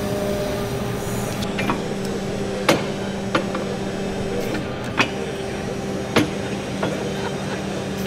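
Case 580 EV battery-electric backhoe loader working its hydraulics: a low, steady hum from the electric drive and hydraulic pump, with no diesel engine note, and a few sharp knocks. This is heard against the background noise of a busy exhibition hall.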